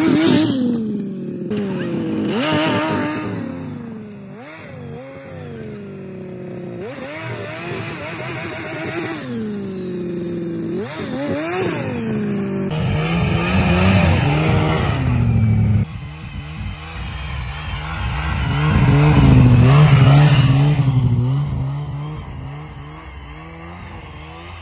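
Snowmobile engine revving up and down several times, rising and falling in pitch. It then runs more steadily as the sled drives by, loudest about four fifths of the way through and fading as it pulls away.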